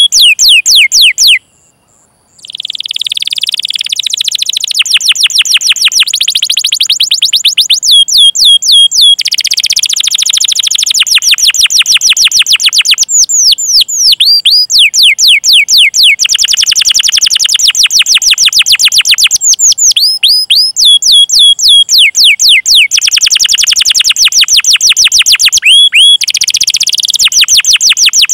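Canary singing: clear, rising 'cuit' call notes repeated in short series, alternating with long, fast rolling trills. There is a brief pause near the start.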